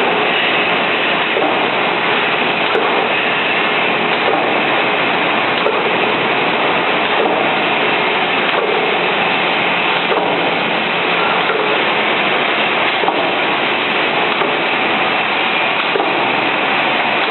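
Rotary two-row tube filling and packing machine for soft tofu running: a steady mechanical noise with a faint knock repeating about every second and a half as it cycles.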